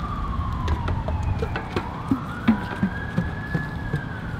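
Emergency-vehicle siren on a slow wail: its pitch falls for about two seconds, climbs back up, and starts to fall again near the end. Underneath are a low rumble and scattered light taps.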